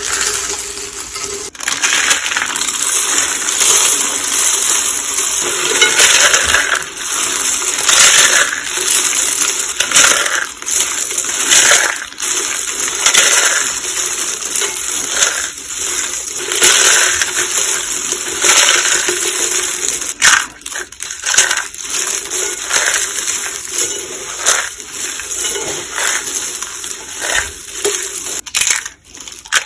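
Crunching of dry pink soap roses and soap curls being crushed by hand, a steady crackle that swells and eases every second or two, with brief pauses twice near the end.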